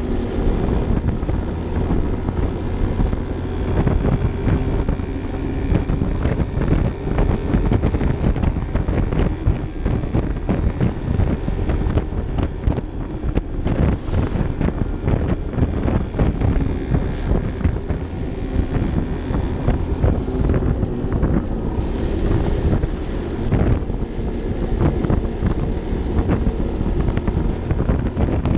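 Vespa LXV 150 scooter's single-cylinder four-stroke engine running steadily at cruising speed, with wind buffeting the microphone.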